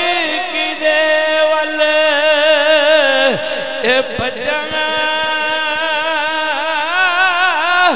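A single voice chanting devotional verse in long held notes, the pitch wavering and ornamented, with a short break for breath a little past three seconds in.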